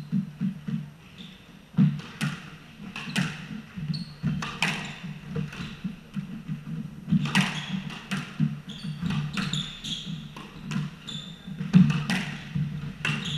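A squash rally: the ball is struck by rackets and smacks off the walls with sharp cracks about a second apart, while the players' shoes squeak and thud on the hardwood court floor.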